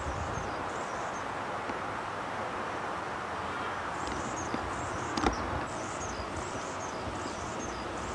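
Steady outdoor background noise with faint high chirps, and a single sharp knock about five seconds in.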